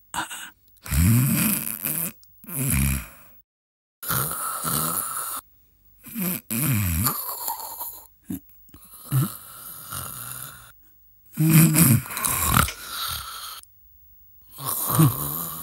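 A sleeping man snoring: a run of drawn-out snores, each about a second long, with short silent breaks between them.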